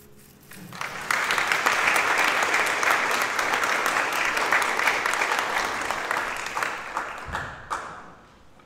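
Congregation applauding in a church sanctuary after a song. The clapping swells in about a second in, holds steady, and dies away near the end.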